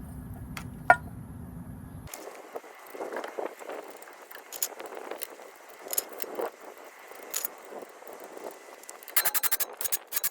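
Metal hand tools and parts clinking and clattering, with a sharp click about a second in and a fast run of clicks near the end.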